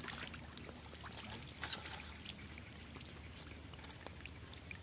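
Muddy water trickling and splashing around a woven bamboo fish basket, with a few light clicks from the basket being handled, the loudest a little under two seconds in.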